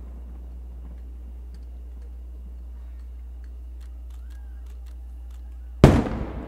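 Aerial fireworks shell bursting high overhead: one loud boom near the end, trailing off in a rumbling echo. Before it, only a low steady background with a few faint clicks.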